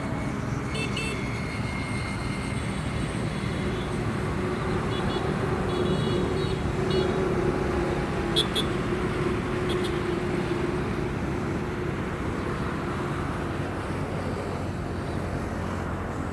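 Steady rumble of a passing motor vehicle with road noise. Its engine hum swells through the middle and fades toward the end, with a few short high chirps over it.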